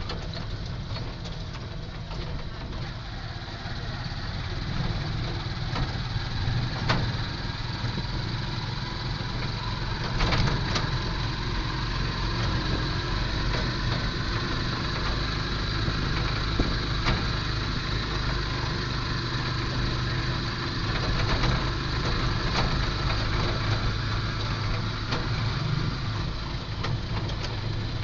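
Heard from inside a moving vehicle: a steady low engine hum with road and wind noise, and a few short knocks or rattles along the way.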